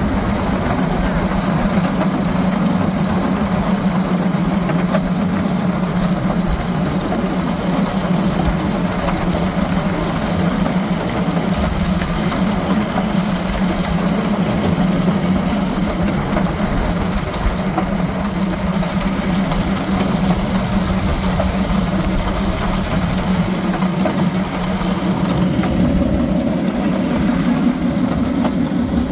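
Motorized railcart rolling along the rails: its small engine running steadily, with the wheels and frame rattling on the track.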